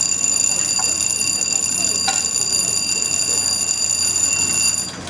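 Lock gate warning alarm: a steady high-pitched electronic tone sounding while the gate swings, which cuts off just before the end.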